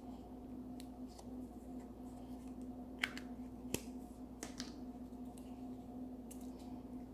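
Small plastic Play-Doh tub being handled and opened: scattered light clicks and taps, with two sharper clicks about three seconds in, over a steady low hum.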